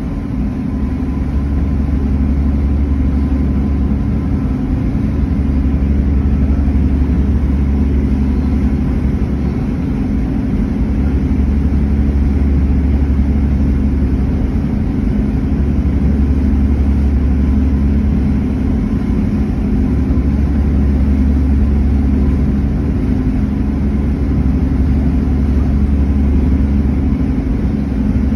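Engines of the Halifax Transit passenger ferry Viola Desmond running, a steady low rumble with a hum, heard from the open deck.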